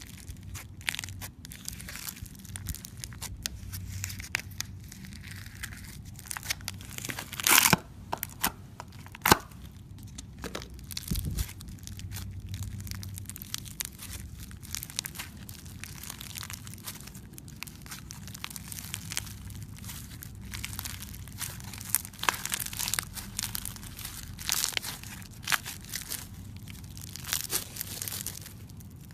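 Crunchy slime squeezed and pressed by hand: dense, irregular crackling and popping, with a few louder crunches about 7.5 and 9 seconds in.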